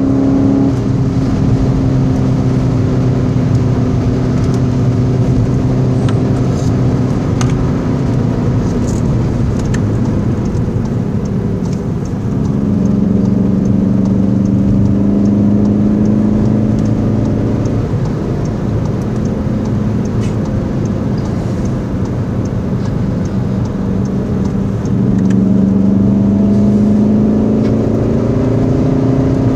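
Volkswagen Golf 7 GTD's 2.0-litre four-cylinder turbodiesel heard from inside the cabin at speed, with steady road noise. The engine note drops as the car slows for a corner, climbs again under acceleration about twelve seconds in, drops once more and rises again near the end.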